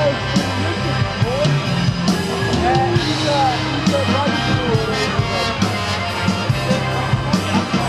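Live band playing loud amplified music: drum kit hits over held bass-guitar notes, with electric guitar.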